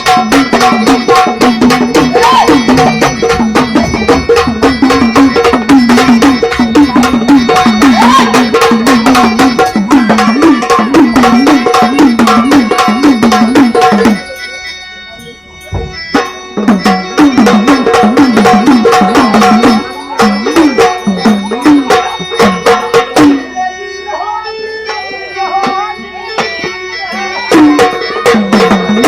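Sambal, the Maharashtrian two-headed stick drum, played in a fast, dense rhythm over keyboard in a gondhal ensemble. About halfway through the music drops away briefly, then carries on more lightly before building up again near the end.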